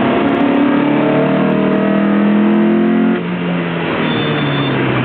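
Lotus Elise engine accelerating hard on track, its pitch rising steadily for about three seconds, then falling abruptly and running on at a lower, steadier pitch.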